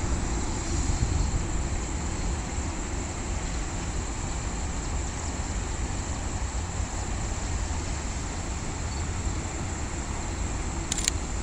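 Container freight train running along the line at a distance, a steady low rumble, with a short click near the end.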